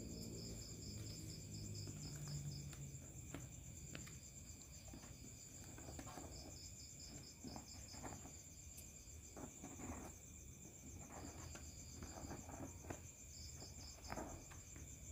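Insects chirping: a steady high trill with repeated pulsed chirps, along with a few faint taps.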